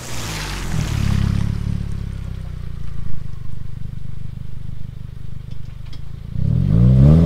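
Subaru WRX's turbocharged flat-four engine running through a Tomei cat-back exhaust as the car accelerates away; near the end the revs climb sharply.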